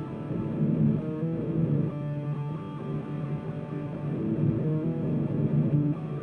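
Guitar music, with plucked guitar notes changing pitch over a steady low line.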